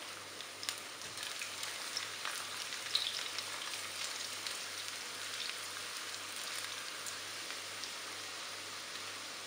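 Sliced garlic and ginger sizzling in hot oil in a nonstick wok, a steady crackle, with a few light clicks as a spatula stirs them.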